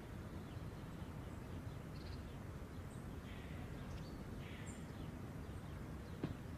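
Faint outdoor ambience: a steady low background hum with a few faint, short bird chirps.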